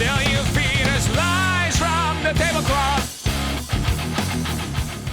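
Background rock music with a singing voice, electric guitar and a steady beat.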